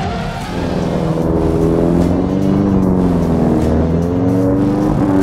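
Autocross race car engine running hard, its pitch rising and falling as it accelerates and lifts off, with background music underneath.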